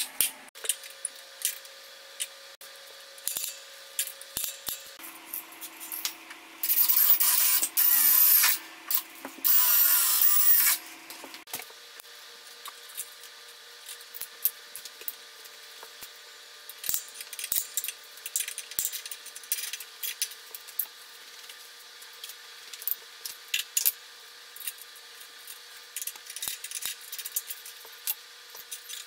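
Small metal hardware clinking and tools being handled, broken by two short runs of a cordless power drill about seven and nine seconds in.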